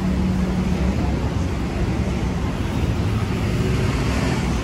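City street ambience heard while walking: a steady wash of noise with a low rumble of traffic under it.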